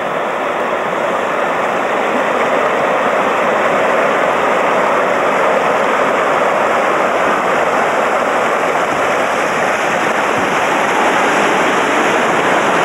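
Fast, shallow river water rushing over a rocky riffle around a bamboo raft: a steady rushing of white water that grows a little louder over the first few seconds.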